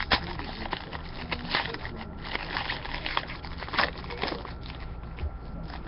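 Trading cards and their packaging being handled: irregular light clicks and rustles, a sharper click right at the start and a few more around one and a half and four seconds in, over a low steady hum.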